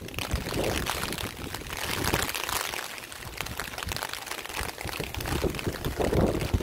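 Heavy typhoon rain falling steadily on a wet paved street, an even hiss.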